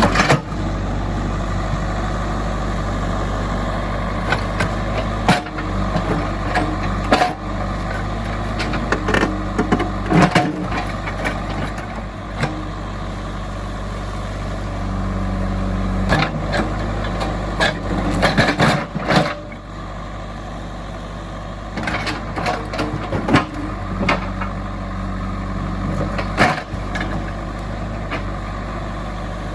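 JCB 3DX backhoe loader's diesel engine running steadily, with repeated clanks and knocks from the machine at work.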